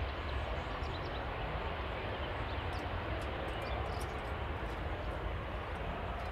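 Dassault Falcon 900EX's three turbofan engines at take-off power as the business jet climbs away just after lift-off: a steady jet rumble.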